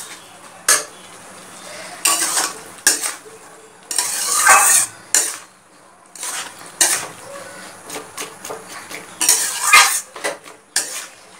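Flat metal spatula scraping and knocking against a metal karai as chopped snake gourd, onion and chillies are stirred and mixed, in irregular strokes about a second or two apart.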